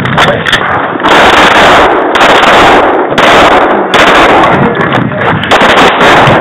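Pistol shots fired in quick strings at close range. They overload the head-mounted camera's microphone into a nearly continuous distorted crackle, broken by short pauses.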